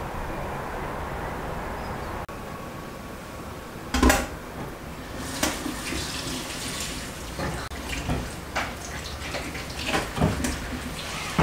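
Kitchen tap running into a stainless steel sink as tomatoes are rinsed under it by hand, with several knocks and clunks, the loudest about four seconds in.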